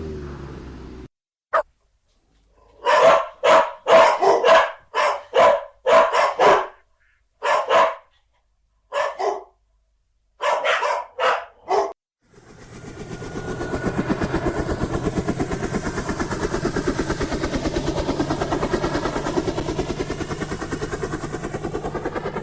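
A dog barking repeatedly in short clusters of sharp barks. After that, a steady, rapidly pulsing engine sound fades in and runs on.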